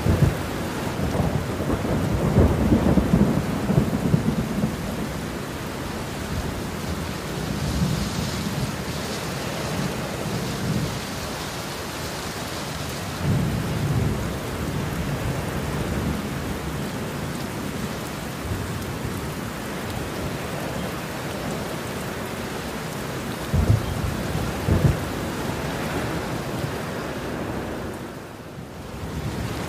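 Heavy rain falling steadily, with thunder rumbling low again and again. Two sharper, louder thunder cracks come about two-thirds of the way through, and near the end the storm briefly drops quieter.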